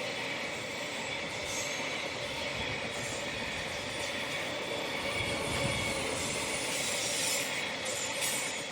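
Oil tank wagons of a freight train rolling past on steel rails, a steady rumble of wheels carrying a held, high-pitched wheel squeal.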